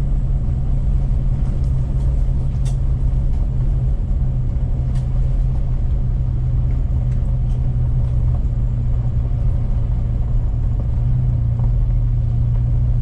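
Pickup truck driving on a rough unpaved road: a steady low rumble of engine and tyres, with a few faint clicks.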